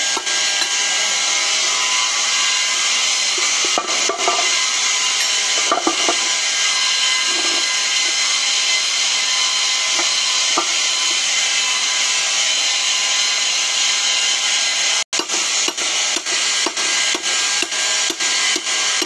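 Hammer blows on a steel rod, knocking freshly cast aluminium-composite bars out of a metal permanent mould: a few metal knocks in the first half, then rapid, even strikes about three a second in the last few seconds. Under it all runs a steady, loud machinery hiss.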